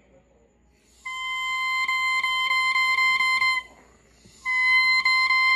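Handmade oboe reed blown on its own, a 'crow' test: two steady, high, buzzy crows, the first starting about a second in and lasting about two and a half seconds, the second starting near the end. The reed crows well even though it is made from fibrous, porous cane.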